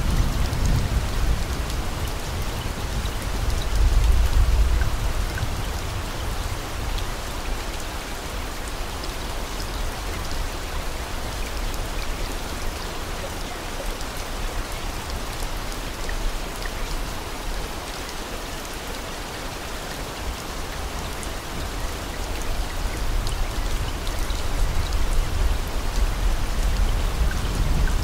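Steady rain-like hiss of falling rain, with a low rumble that swells about four seconds in and again near the end.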